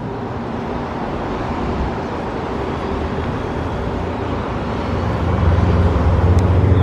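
Road traffic: a steady rush of vehicle noise, with a motor vehicle's low engine hum swelling up about five seconds in and staying loud.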